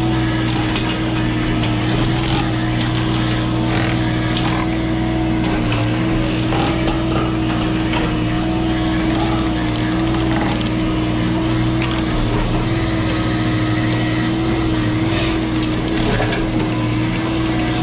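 CAT 304 mini excavator running a hydraulic Blue Diamond brush cutter head as it mulches brush: a steady machine drone with a constant hum, and scattered cracking and splintering as wood is shredded.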